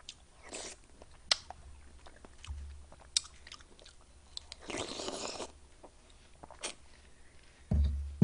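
Close-up eating sounds of a person biting and chewing watermelon hwachae, a watermelon fruit punch: wet, crunchy mouth noises with scattered sharp clicks. A louder low thump comes near the end.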